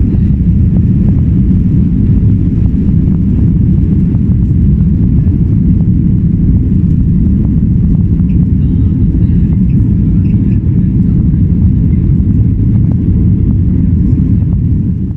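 Cabin noise of a Ryanair Boeing 737 jet airliner taking off: the engines at takeoff power through the runway roll, lift-off and climb, heard from a window seat over the wing as a loud, steady low rumble.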